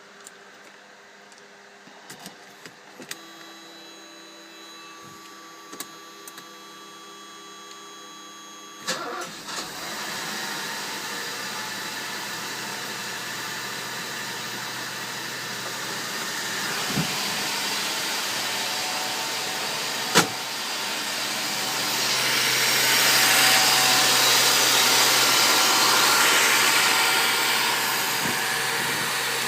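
Mercedes-Benz W126 500 SEL's M117.963 5.0-litre V8 with K-Jetronic injection: a few clicks and a faint whine, then the engine starts about nine seconds in. It runs with a steady breathing hiss from the intake and exhaust, which grows louder for several seconds near the end and then eases back.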